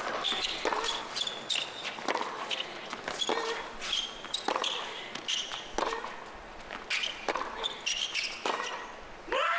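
Tennis rally on a hard court: racquets striking the ball about once a second, with short high shoe squeaks between the shots. Near the end the crowd reacts as the point ends.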